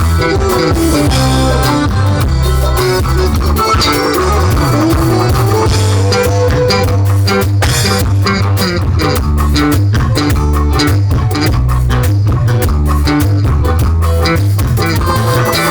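Live band playing upbeat instrumental music with a heavy bass line, guitar and a steady drum beat.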